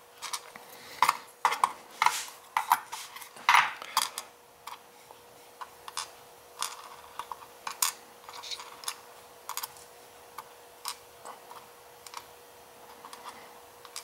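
Small sharp metal clicks and taps of steel tweezers picking brass lock pins out of a cylinder plug and setting them down in a pin tray. The clicks come quick and irregular for the first few seconds, then sparser, over a faint steady hum.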